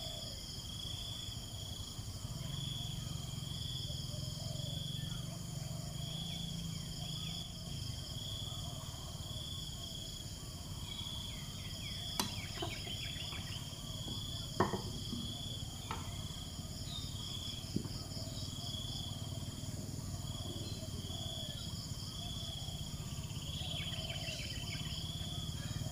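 Steady insect chorus: a high buzz pulsing about once a second over a faster, higher trill. A few sharp clicks sound in the middle.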